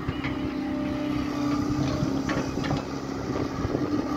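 Diesel engine of a small tracked Hitachi excavator running steadily while it digs, with a few short knocks about two seconds in.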